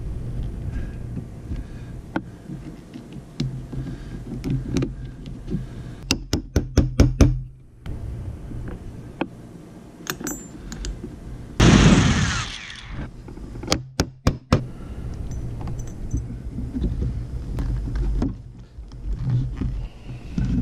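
Hammer striking copper rivets to set them in a leather axe sheath: a quick run of about seven sharp taps, a brief rush of noise about twelve seconds in, then three or four more taps, over a low steady hum.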